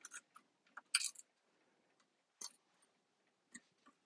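A handful of short, sharp plastic clicks and snaps from working on a Tesla Model S battery module, the loudest about a second in.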